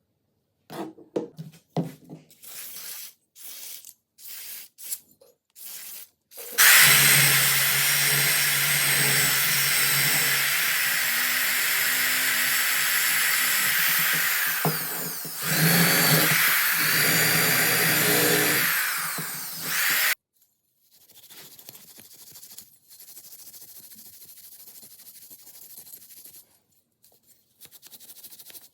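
A handheld power tool running steadily for about thirteen seconds, working on metal, with a brief drop partway through before it picks up again. It is preceded by a run of short, irregular working sounds and followed by a fainter steady hiss.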